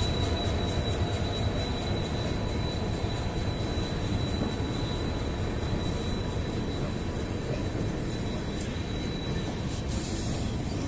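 Indian Railways Rajdhani Express coaches rolling along the track: a steady rumble with a thin high whine held over it that fades near the end, and a few sharp clicks near the end.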